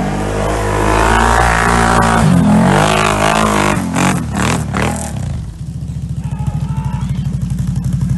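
ATV engine revving hard on a steep hill climb, its pitch rising and falling. After about five seconds it drops to a slow, even low-rev chugging.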